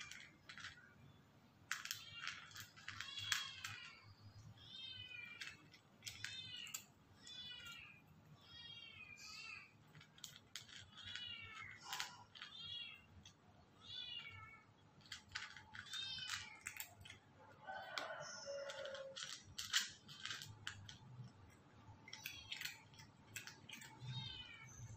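Cat giving short, high-pitched mews, about one a second, with scattered faint clicks between them.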